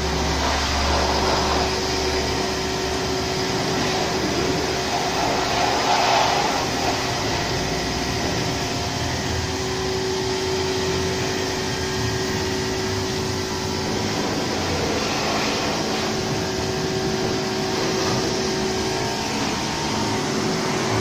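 Electric water pump motor running steadily, a constant hum with a hiss over it.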